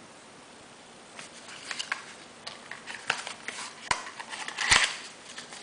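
Small cardboard cosmetics box being handled and its contents fiddled with: rustling, scrapes and light clicks that start about a second in, with one louder scraping rustle near the end.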